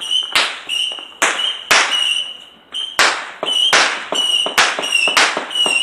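Fireworks going off in a quick, uneven run of sharp bangs, two or three a second. A steady high-pitched tone sounds between the bangs.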